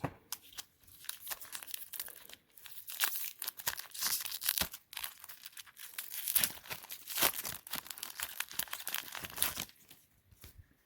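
Trading-card pack wrapper being torn open and crinkled by hand: a stretch of irregular crackling and tearing that dies away about a second before the end.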